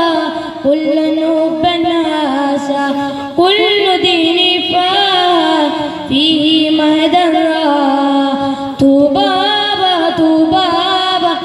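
A boy singing a devotional song solo into a microphone, holding long notes that bend and waver in pitch, with short breaths between phrases.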